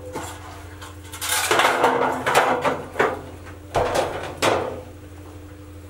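Thin sheet-metal cage trays clattering and scraping against each other as they are handled and stacked. There is a long rattling clatter, a sharp clank about three seconds in, then another clatter, over a steady low hum.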